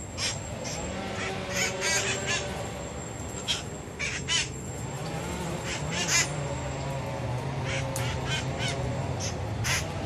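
Red-masked parakeets (cherry-headed conures) calling: a dozen or more short, sharp calls, often in quick pairs or runs, over a steady low hum.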